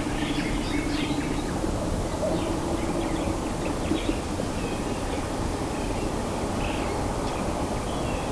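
Outdoor ambience with birds chirping now and then over a steady low background noise.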